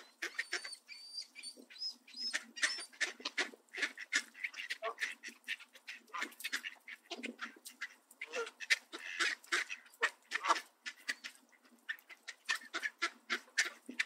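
Canada geese and mallard ducks feeding together, giving honks and quacks among many short, sharp clicks and rustles. A thin, high repeated call sounds faintly in the first few seconds.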